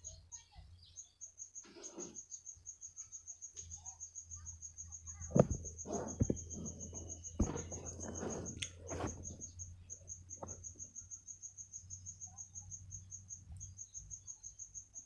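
Insect, cricket-like, chirping steadily in a rapid high pulse of about six or seven chirps a second, over a low steady hum. A few sharp knocks and some rustling come in the middle.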